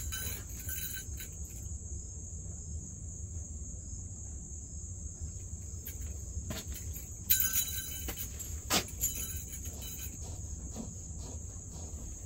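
Steady high-pitched chirring of insects outdoors, with a few short sharp knocks a little past halfway.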